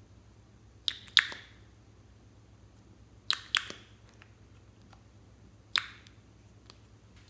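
Sharp plastic clicks from a small lip-tint tube and its applicator cap being handled, in pairs about a second and three and a half seconds in, then once more near the end.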